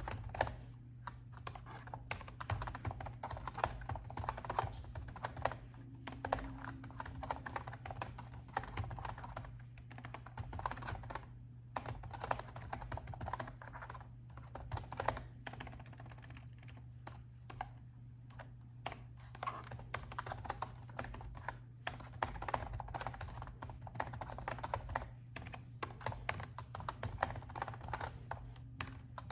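Typing on a laptop keyboard: rapid runs of keystrokes broken by short pauses, over a steady low hum.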